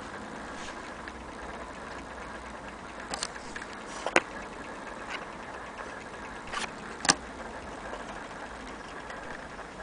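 Antique French mantel clock ticking faintly under steady background noise, with a few sharp clicks from handling, the loudest about four seconds in.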